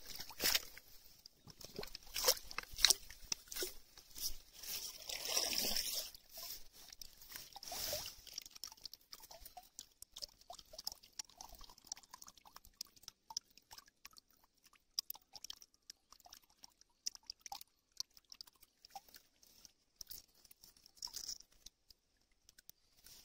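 A pond dip net swept through shallow water and waterweed, sloshing and rustling in a dense run of crackles for the first eight seconds or so. After that, wet leaves and debris in the net give faint, scattered crackles and rustles as they are picked through by hand.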